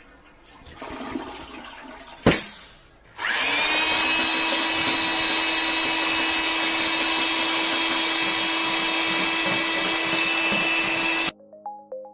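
A sharp click, then a small electric motor spins up and runs with a steady whine and loud buzz for about eight seconds before cutting off suddenly. Brief plinking music notes follow near the end.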